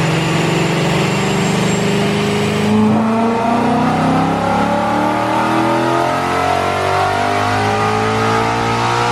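A Mustang's engine running hard on a chassis dyno, steady at first, then from about three seconds in the revs climb steadily in one long pull.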